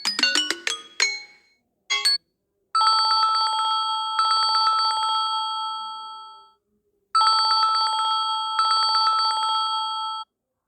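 Electronic telephone ringtone: a trilling ring of several steady tones, rapidly pulsing, sounding twice for about three to four seconds each with a pause between. It is preceded by the last chiming notes of a melodic ringtone and a short blip.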